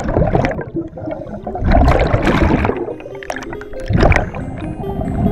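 Water gurgling and bubbling in three surges around a scuba diver going under. Soft music with held notes comes in about halfway through.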